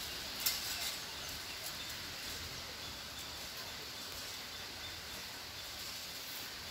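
A few sharp metal clicks from a coconut-tree climbing frame being stepped down the trunk, about half a second to a second in, then steady outdoor background hiss.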